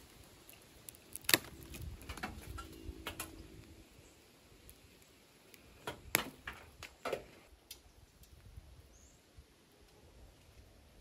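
A handful of sharp knocks and clacks, five or so, the loudest about a second in and another pair around six and seven seconds in, with a brief low hum between the first strikes.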